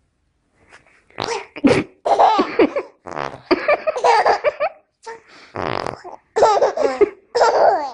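A baby blowing raspberries against a bare belly, making fart-like buzzing noises at least twice. Bursts of laughter come between them.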